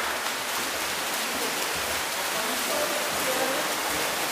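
Steady splashing of water polo players swimming and churning the water in an indoor pool, with faint distant voices in the hall.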